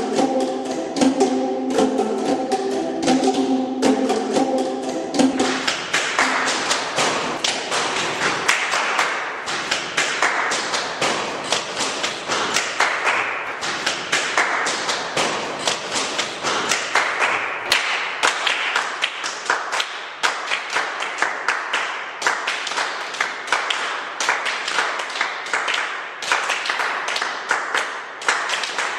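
Percussion music of rapid, dense tapping and knocking. A few held tones sound under the taps for about the first five seconds.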